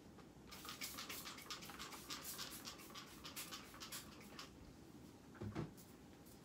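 A cloth wiping and rubbing a wooden dresser, a quick run of faint scrubbing strokes lasting a few seconds, then a low thump about five and a half seconds in.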